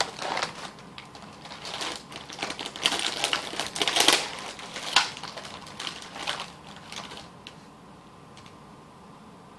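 Plastic Oreo cookie package being handled: a run of crinkling crackles, busiest and loudest in the middle, that dies away after about seven seconds.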